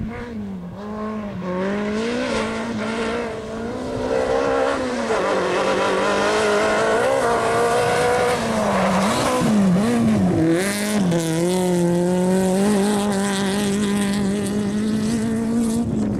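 Rally car's engine revving hard on a gravel stage, growing louder over the first few seconds as the car approaches. The pitch rises and falls with gear changes and dips sharply for a moment in the middle as the throttle is lifted, then is held high. Loose gravel and tyres hiss underneath.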